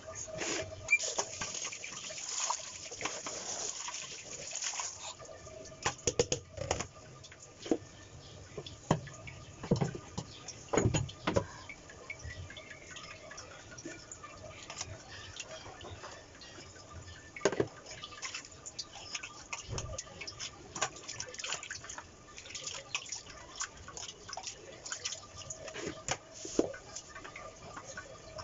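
Kitchen work at a sink: water running for the first few seconds, then scattered clinks and knocks of dishes and utensils being handled.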